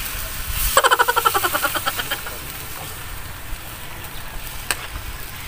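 Water spinach sizzling in a wok over an open wood fire: a steady hiss with a few sharp crackles from the burning sticks. About a second in, a quick run of short high-pitched sounds lasts about a second and a half.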